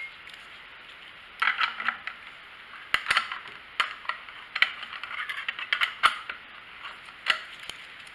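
Small metal hand tool clicking and clinking against the engine's sheet-metal air cleaner cover as the wing nut is worked loose. About a dozen sharp, irregular clicks over several seconds, some with a brief metallic ring.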